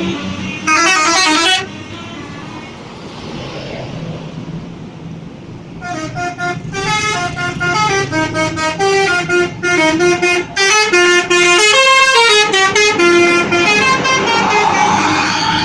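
Indonesian bus 'telolet basuri' musical air horn: a short burst of notes about a second in, then from about six seconds in a long tune of quick, stepping notes. A steady engine hum runs underneath.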